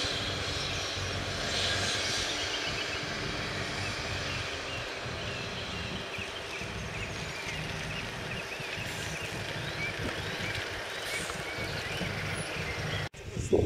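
Single-deck bus's engine running steadily as the bus drives slowly across a depot yard. Near the end the sound cuts out for an instant and a short, louder sound follows.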